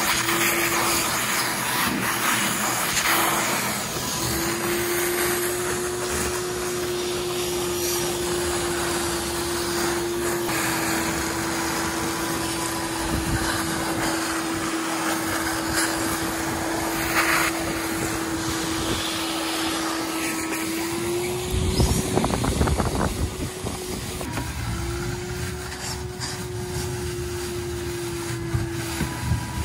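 Wet/dry vacuum cleaner running steadily as it sucks the remaining water out of a drained hot tub through a PVC pipe extension. Its motor tone shifts in pitch now and then as the load changes. About two-thirds of the way through there is a short burst of louder, rattly noise.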